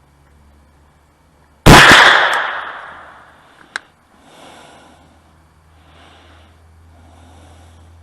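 A single loud rifle shot with a long echoing tail that dies away over about two seconds, followed by a short sharp tick about two seconds later.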